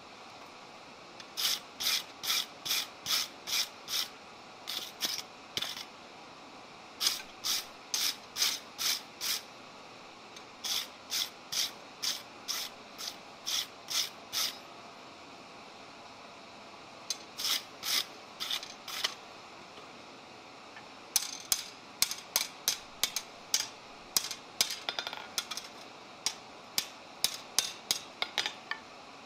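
Blacksmith's hand hammer striking a red-hot steel bar on an anvil: runs of sharp blows, about two to three a second, broken by short pauses, with a quicker, longer run of blows in the last third.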